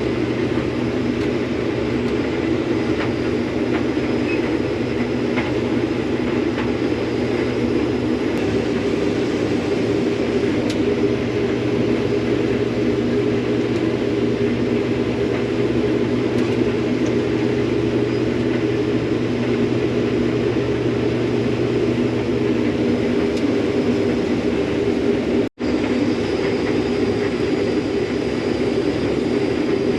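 Combine harvester running steadily while harvesting soybeans: a continuous mechanical drone with a low hum that fades out about three-quarters of the way through, and a split-second dropout shortly after.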